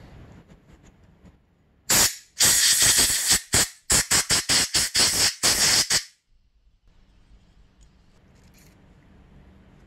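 Aerosol cleaner sprayed through a straw into a carburetor float bowl to flush out grime: one short hiss about two seconds in, then a quick run of short spray bursts lasting about three and a half seconds.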